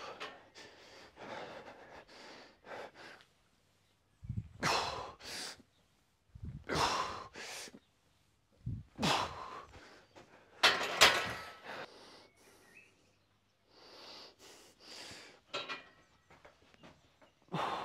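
A man breathing hard through a set of heavy barbell lifts: about ten forceful, hissing exhales and sharp breaths, with short pauses between them.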